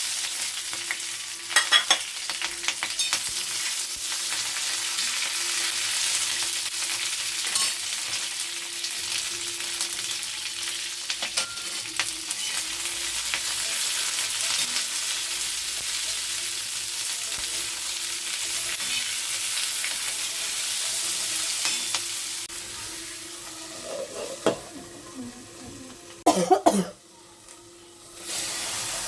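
Food sizzling in hot oil in a pan while being stirred, with scattered sharp scrapes and taps of a spatula against the pan. The sizzle dies down about three-quarters of the way through, followed by a few clanks of utensils.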